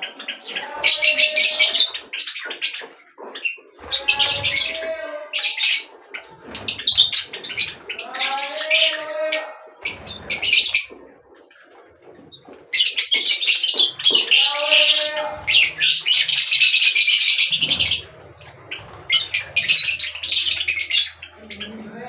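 Birds calling in loud, harsh chattering bursts of a second or two, with shorter pitched calls rising and falling between them; one unbroken stretch of chatter in the second half lasts about five seconds.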